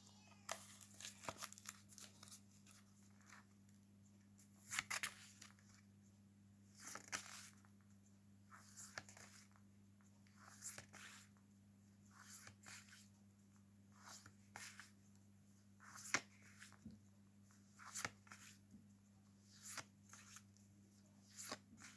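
Faint rustles of paper flashcards being turned one after another through a pack of phonics sound cards, about one every two seconds, over a low steady hum.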